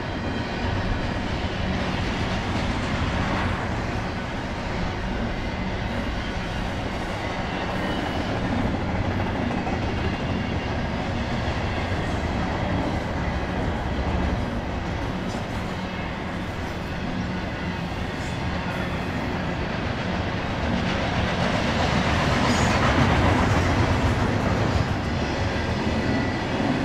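Double-stack intermodal well cars of a freight train rolling steadily past, steel wheels running on the rails. The sound swells louder for a few seconds about three-quarters of the way through.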